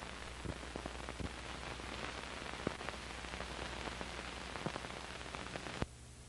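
Surface noise of an old film soundtrack with nothing playing on it: a steady hiss with scattered crackles and a low hum. It cuts off suddenly with a click a little before the end.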